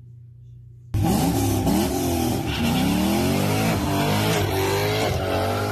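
A car engine accelerating hard, starting suddenly about a second in. Its pitch climbs and drops back again and again as it shifts up through the gears.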